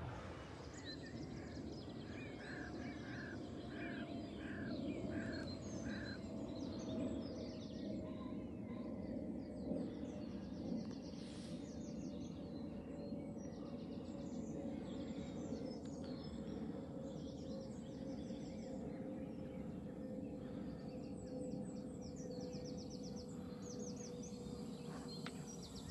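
Outdoor ambience of birds singing and chirping around a lake, with a quick run of repeated notes in the first few seconds. Under it runs a low steady haze and a faint hum that slowly drops in pitch.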